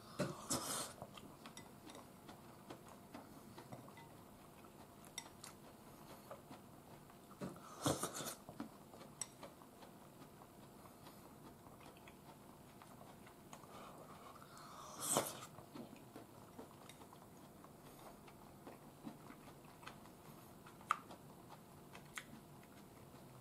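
Quiet eating at the table: chewing soft vegetables from a bowl of nameko mushroom soup, with three louder noisy eating sounds (about a second in, around eight seconds and around fifteen seconds) and a few light clicks of chopsticks against the ceramic bowl, one sharper click near the end.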